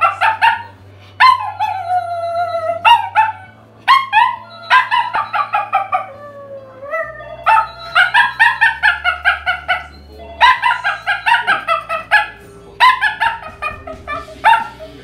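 Toy poodle howling with its head raised: long howls that slide down in pitch, alternating with quick runs of short yelping howls. The howling is set off by a ringing telephone, a high sound the dog reacts to.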